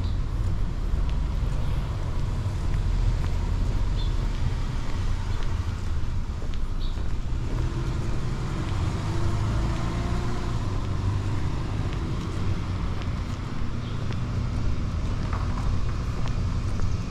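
City street traffic: a steady low rumble of passing cars and other vehicles.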